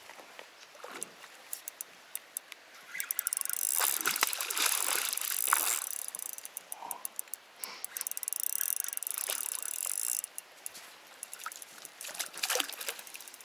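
Fishing reel being wound to retrieve a lure, a fast ticking whir that builds about three seconds in and eases off near the end, over water trickling.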